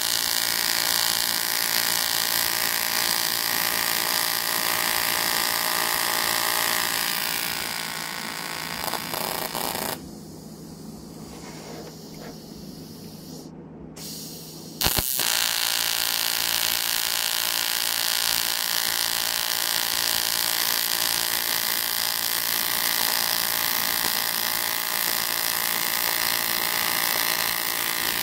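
AC TIG welding arc on aluminium, a steady buzz. It fades about seven seconds in, stops near ten seconds, and strikes again abruptly about fifteen seconds in, then buzzes steadily.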